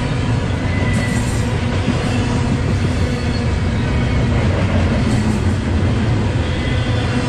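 Double-stack intermodal freight train's container well cars rolling past: a loud, steady rumble of steel wheels on rail.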